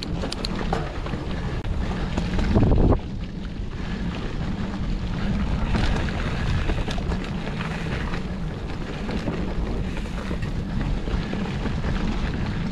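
Wind rushing over the microphone of a camera riding a mountain-bike trail, steady and rumbling, with a louder swell about two to three seconds in.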